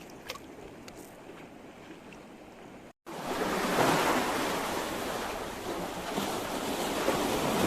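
Sea waves washing, loud and steady, cutting in suddenly about three seconds in. Before that there is a quieter stretch with a few light clicks.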